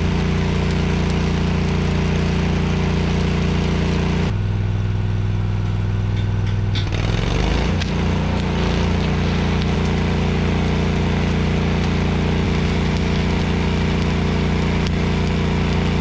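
Engine-driven welder running steadily during welding on a steel beam; its note changes about four seconds in and changes back about three seconds later.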